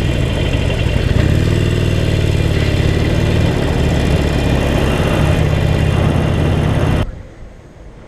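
Harley-Davidson Sportster Forty-Eight's air-cooled V-twin engine running steadily on the road, picking up slightly about a second in. The sound cuts off suddenly near the end.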